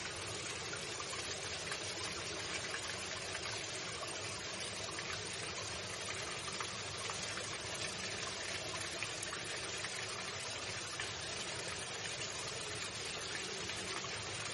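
Running water, a steady even rush like a stream or small waterfall.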